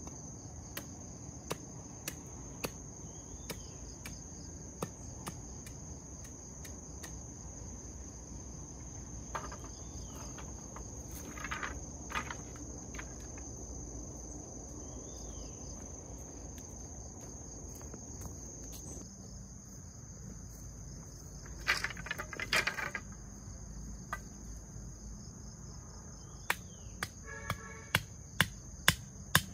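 Insects chirring steadily at a high pitch, with scattered sharp knocks of work on bamboo and a short clatter of wood about two-thirds in. Near the end comes a regular run of strikes, about two a second, as a hoe chops into garden soil; these are the loudest sounds.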